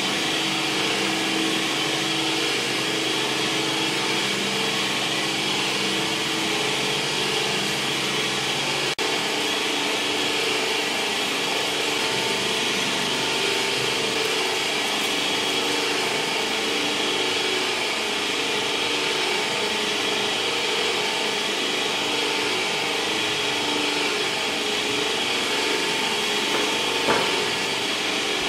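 Electric meat grinder with a sausage-stuffing tube running steadily as it fills a pork-intestine casing; the motor's hum shifts slightly about nine seconds in.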